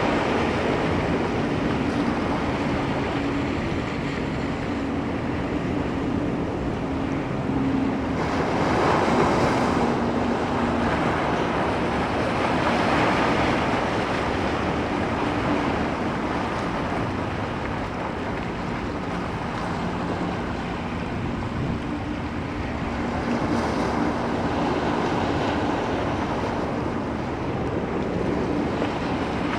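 Ocean surf: waves breaking and washing in a continuous rush that swells louder every few seconds as each wave comes in.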